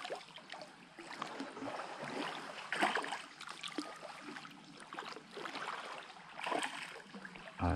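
Water splashing and lapping around a kayak, irregular, with a few louder splashes about three seconds in and again near the end.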